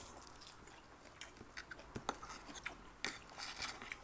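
Close-miked chewing of rice and boiled vegetables, with light scattered clicks of spoons and forks against ceramic plates.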